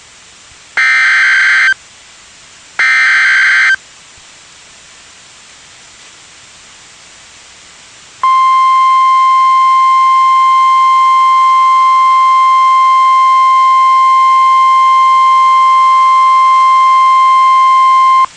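The last two of three Emergency Alert System SAME header data bursts, each a buzzy second of digital data tones, a second apart. After about four seconds of hiss, the NOAA Weather Radio warning alarm tone sounds as one steady high tone for about ten seconds and cuts off sharply, announcing the warning that follows.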